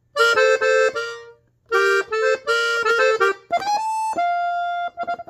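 Hohner three-row diatonic button accordion tuned in F, played on its treble buttons: two short melodic phrases in two-note harmony with a brief pause between. Then a quick run up to a high note that drops to a held lower note.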